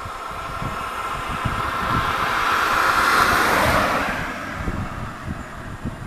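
A car driving close past: tyre and engine noise swells to a peak about three seconds in, then fades, over the low rumble of road traffic.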